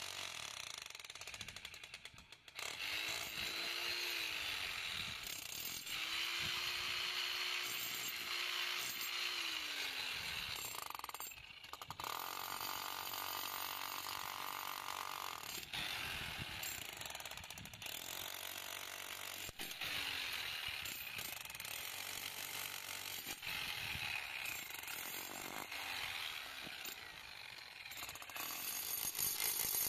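Corded electric demolition hammer with a chisel bit chipping into a concrete slab: rapid mechanical hammering, stopping briefly about two seconds in and again about eleven seconds in, then starting up again.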